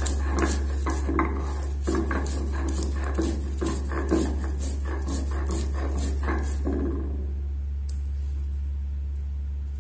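Stone roller rubbed back and forth over a flat grinding stone (sil-batta), grinding green chillies, mint and raw mango into chutney paste: gritty scraping strokes about two a second that stop about seven seconds in, over a steady low hum.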